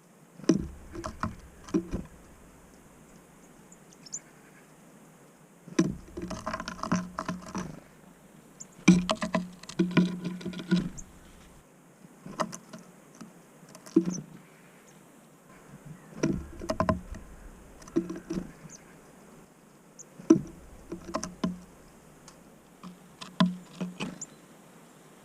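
Irregular clusters of knocks and taps on a bird feeder as small birds such as great tits land, hop about and peck at seed, with quiet gaps of a second or two between the clusters.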